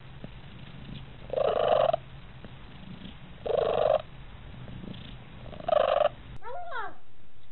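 Domestic cat purring steadily, broken three times by short loud calls about two seconds apart. Near the end a cat gives one short meow that rises and falls in pitch.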